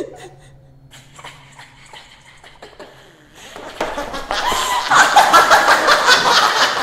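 After a few seconds of faint rustling, a loud, shrill human cry breaks out about three and a half seconds in and keeps going, rapidly pulsing.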